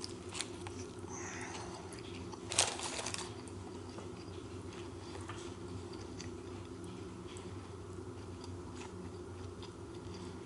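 A person biting and chewing a chicken sandwich, with small mouth clicks and one louder bite about two and a half seconds in, over a steady low hum.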